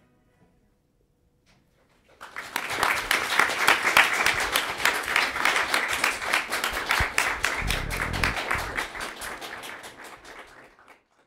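Audience applause: many hands clapping, starting about two seconds in after a brief hush, then fading away near the end.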